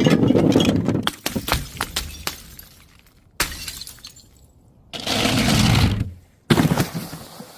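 Glass bottles shattering in a series of four crashes, the first followed by a scatter of small clinking shards, the others coming about 3.5, 5 and 6.5 seconds in.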